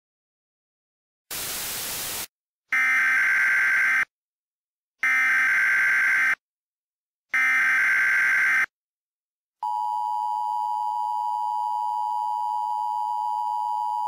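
A short burst of static hiss, then the three data bursts of an Emergency Alert System SAME header: warbling digital tones, each a little over a second long, with short gaps between them. After a pause the steady EAS attention tone begins and holds.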